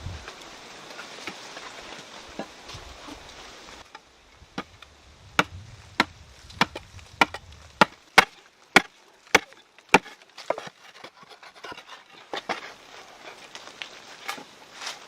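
Wood being chopped: a run of about ten sharp, evenly paced strikes, roughly two a second, starting a few seconds in. These are followed by softer knocks and rustling.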